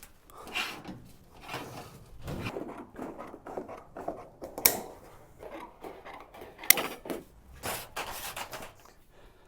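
Irregular work-handling noises: scattered knocks, scrapes and rubbing, with two sharp clicks, one about halfway through and one a couple of seconds later.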